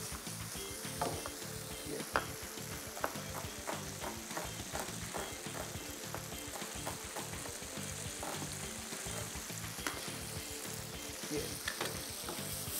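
Tomatoes, onion and cashews frying in butter and oil in a pan over a gas flame: a steady sizzle, with scattered light clicks and knocks throughout.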